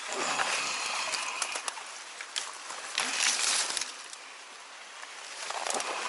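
Leaves and stems of dense streamside plants rustling as they are pushed aside. The loudest burst comes about three seconds in, followed by a quieter lull.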